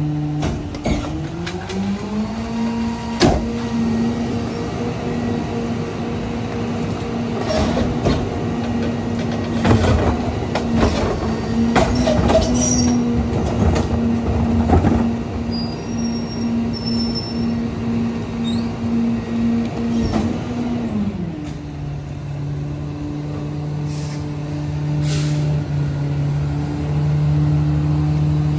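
Pac-Tech rear-loader garbage truck's engine speeds up about a second in, holds at high idle while the packer hydraulics run and the blade compacts the hopper load, then drops back to idle about 21 seconds in. Carts bang against the hopper and trash thuds in several times along the way.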